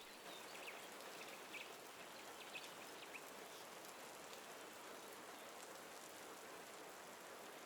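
Faint, steady rain ambience, an even hiss of rain falling. A few faint short high chirps come in the first three seconds.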